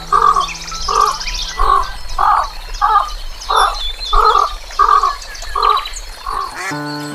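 Duck quacking in a steady series, about ten quacks evenly spaced, with small birds chirping high above and soft background music underneath.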